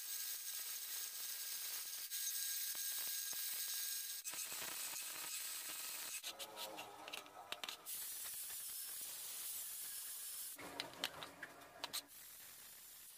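Drill press with a twist bit boring through a thick steel disc: a steady high hiss of the bit cutting, in several stretches that stop and change abruptly.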